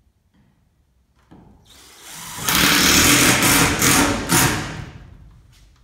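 Cordless power drill driving a screw through a steel ceiling panel. The motor starts about a second and a half in, runs loudest for about two seconds as the screw goes in, then winds down near the end.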